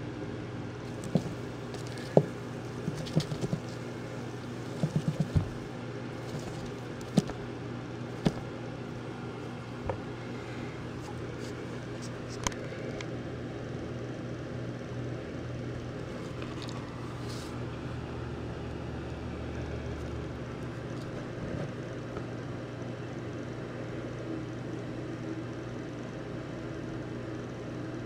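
A steady low hum with a scattering of sharp clicks and taps through the first twelve seconds or so, including a quick cluster about five seconds in, after which only the hum remains.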